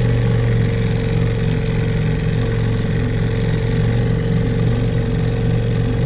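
Small 6-horsepower outboard motor running steadily, a constant low hum that does not change in pitch.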